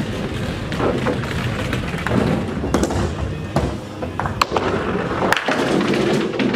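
Mini bowling ball rolling down the lane, then hitting the pins with a sharp clatter about five seconds in, against the steady noise of a busy bowling alley with background music.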